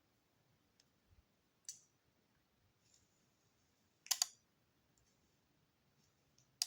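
A few short, sharp clicks against near quiet: one just under two seconds in, a louder double click about four seconds in, and another at the very end.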